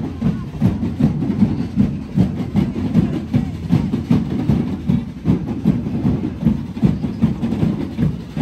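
Rhythmic low drumming, about three to four beats a second, played without a break.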